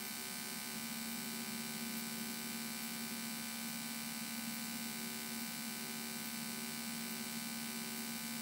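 Steady, faint hum of a Cessna 172N in cruise flight: the engine and cabin drone as it comes through the headset intercom audio, unchanging.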